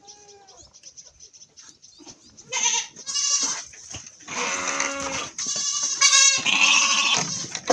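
Goats bleating: several long, quavering bleats one after another, starting about two and a half seconds in.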